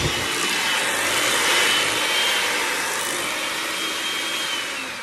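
Electric hand mixer running steadily, its beaters whipping cream cheese and sour cream in a bowl: a whirring motor with a thin high whine. Near the end the whine starts to fall in pitch as the motor winds down.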